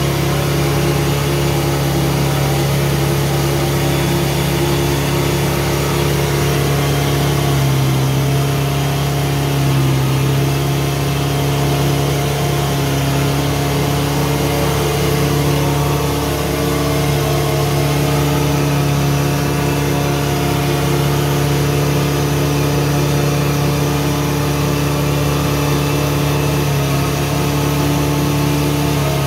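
Old log skidder's diesel engine running steadily, heard from the operator's cab, its pitch rising and falling slightly a few times as it works.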